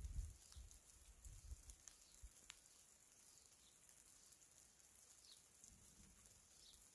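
Near silence: faint outdoor ambience with a steady high hiss and a few short, faint high chirps. A soft low rumble fades out at the start and returns briefly about six seconds in.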